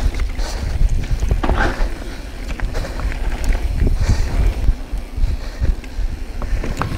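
Yeti SB6c mountain bike riding over a rocky dirt trail: tyres rolling on dirt and stones, with frequent clicks and rattles from the bike over bumps. Wind rumbles steadily on the microphone, and the rider's heavy breathing comes in a few short gasps.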